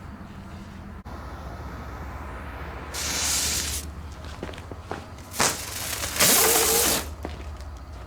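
Lit jumping jack matchcrackers fizzing: a hiss about three seconds in, a short sharp crack, then a louder, longer hiss with a wavering whistle near the end.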